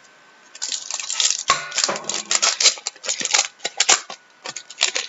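Foil trading-card pack wrappers crinkling and cards being handled: a dense run of crackles and clicks that starts about half a second in.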